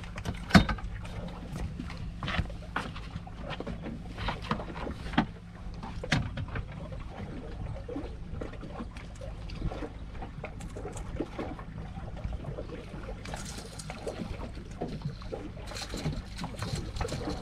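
Small fishing boat on the water: a steady low hum, with scattered clicks and knocks throughout.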